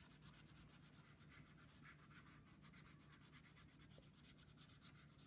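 Faint scratching of a felt-tip washable marker colouring in on a paper towel laid on a paper plate, with quick repeated strokes at a steady pace.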